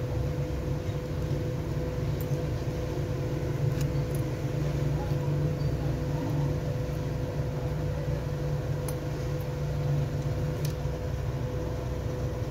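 A steady low machine hum with a constant tone above it, and a few faint small clicks scattered through.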